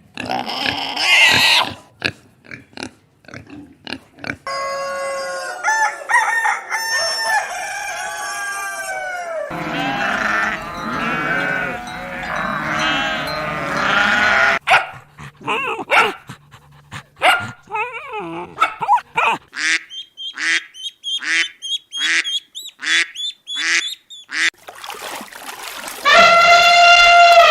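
A succession of different animal calls. Near the end comes a loud, long pitched call, and before it runs a series of short calls repeated about twice a second.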